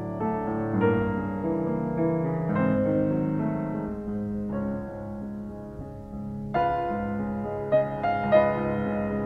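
Background piano music, slow sustained chords and melody notes.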